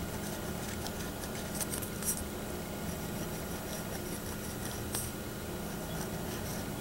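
A pen tip tracing a line around a smooth foam ball: faint scratching on the foam as the ball is turned in the fingers, with a couple of small clicks, over a steady low hum.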